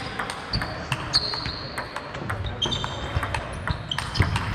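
Table tennis rally: a plastic ball clicking off bats and table in quick, irregular succession in a large hall, with a few brief high squeaks.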